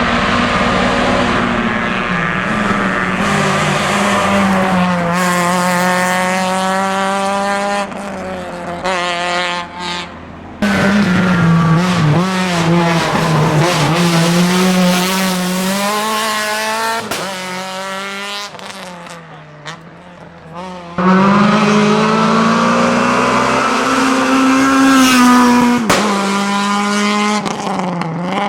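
Renault Mégane Maxi rally car's engine at full throttle, revving up and dropping back with each gear change as the car goes past and away, repeated over several abrupt cuts between passes.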